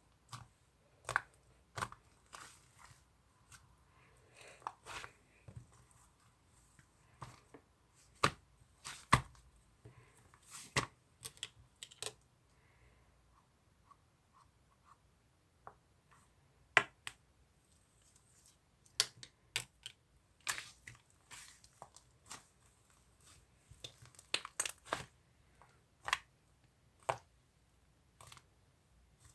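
Sticky, creamy slime being pressed and stretched by hand, giving irregular sharp clicks and small pops at uneven intervals.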